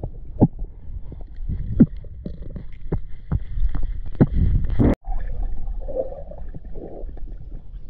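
Muffled underwater sound picked up by a camera in its waterproof housing as a diver moves along a river bed and handles debris: a constant low rumble with many irregular knocks. The sound cuts out for an instant about five seconds in.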